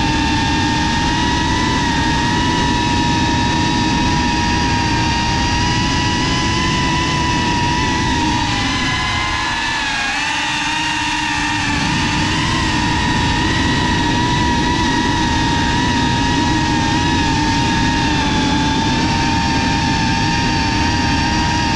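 GEPRC FPV quadcopter's brushless motors and propellers whining steadily at a high pitch, with rushing wind noise as heard on the onboard camera. About halfway through, the pitch sags and the low rush drops out for about three seconds before the whine climbs back.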